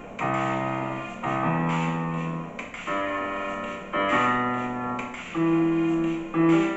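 Chords played on a small electronic keyboard through an amplifier, a new held chord about every second or so, each slowly fading, the last one near the end the loudest.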